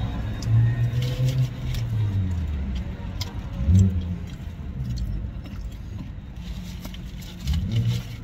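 Eating sounds of chewing and handling food, heard as scattered short clicks and smacks over a low steady rumble, with two brief low hums from a person.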